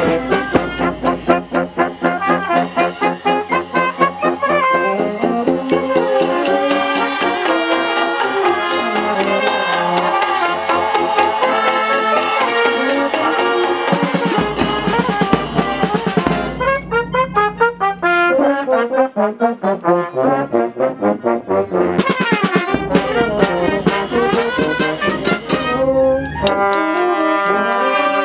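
Marching town band of brass and woodwind instruments playing a march while walking.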